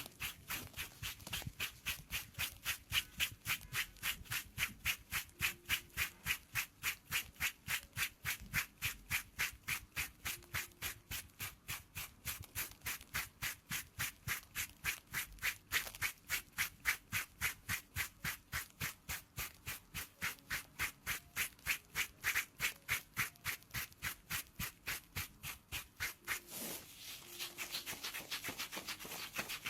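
A pedicure scraper rasping at the skin of a foot affected by athlete's foot, in quick regular strokes about three a second. Near the end the strokes run together into a denser, steadier scraping.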